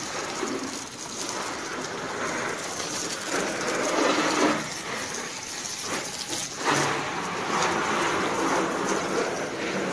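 A jet of water from a hose spraying against a car's body panels and splashing onto the tiled floor, a steady hiss that breaks off briefly twice about five and six seconds in.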